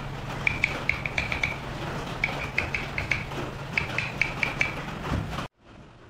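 A small wood-carving chisel tapped in quick groups of three to five light strokes while cutting fine detail into wood, each stroke a short click with a brief metallic ring, over a steady low hum. About five and a half seconds in, the sound drops away sharply to a much quieter background.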